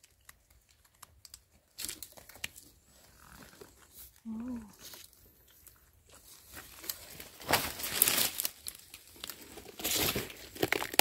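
Rustling, crackling and tearing of dry forest litter and brush being handled and trodden, sparse at first and busier with louder bursts in the second half.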